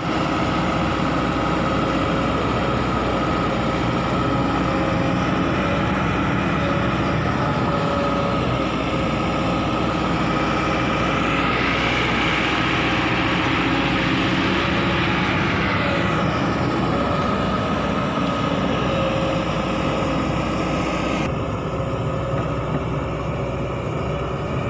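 Heavy construction machinery engines running steadily, with a louder, noisier swell around the middle.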